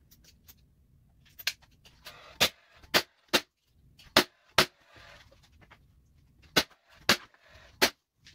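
Cordless brad nailer firing about ten sharp shots, some in quick pairs with short pauses between, driving brads through old wood lath strips into a wall stud.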